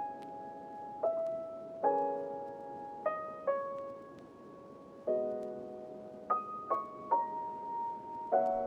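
Slow, gentle piano background music: struck chords that ring and fade, with a melody stepping from note to note about once a second.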